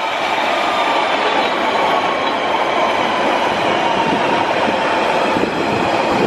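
London Underground 1992 Stock tube train running past along the platform: a steady rumble of wheels on rail, growing a little louder in the first second, with a faint whine that slowly falls in pitch.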